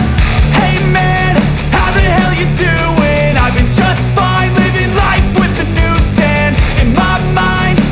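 Loud rock music with a steady drum beat, bass and guitar.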